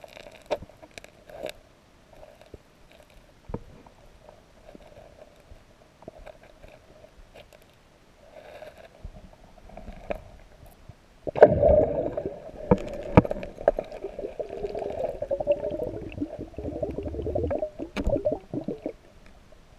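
Underwater sound of stones and gravel in a stream bed being handled by a gloved hand: scattered sharp clicks and knocks, then from about eleven seconds in a louder continuous low noise full of knocks for about seven seconds.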